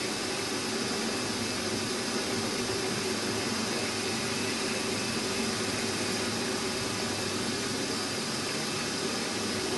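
Milling machine running steadily while a small drill bit is fed slowly down into a metal crankshaft held in a vise: an even motor and spindle hum with the cutting noise of the drill.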